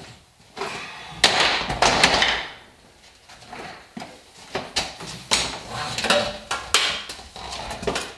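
Irregular knocking and clattering as shop equipment is handled: a shop vacuum and its hoses beside a sandblast cabinet. Two louder scraping clatters come in the first three seconds, then a run of lighter knocks and clicks.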